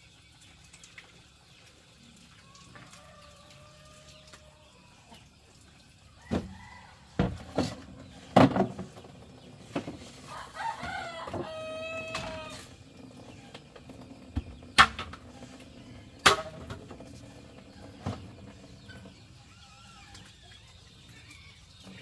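A rooster crows once, about halfway through, a call of a little over two seconds ending on a held lower note. Around it come half a dozen sharp knocks and clatters, louder than the crow, as bamboo poles are handled on a floor of bamboo poles.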